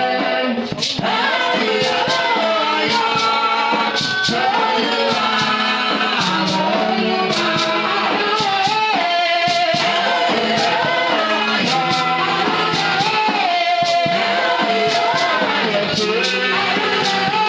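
Gospel praise-and-worship song: a group of male and female voices singing together over band accompaniment with a steady beat.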